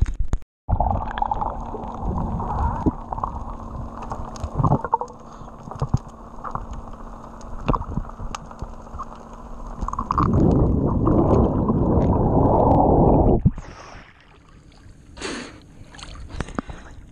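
Underwater water noise heard through a submerged camera: a dense, muffled rushing and bubbling from a snorkeler's dive, growing louder for a few seconds before it cuts off sharply as the camera breaks the surface. Lighter splashes and water sounds follow.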